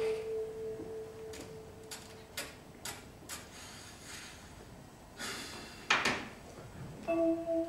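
A held mallet-instrument note fades away, then light clicks and rustling come from a cardboard stage prop being handled. A hissing swish follows about six seconds in, and a new pair of held musical tones enters near the end.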